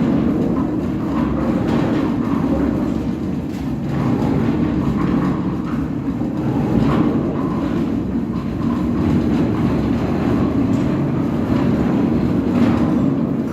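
Ready-mix concrete mixer truck running: a steady, loud mechanical rumble with faint irregular clicking throughout.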